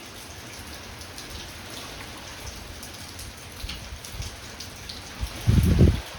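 Steady heavy rain falling, with many scattered drops ticking close by. Near the end comes a loud low rumble lasting about half a second.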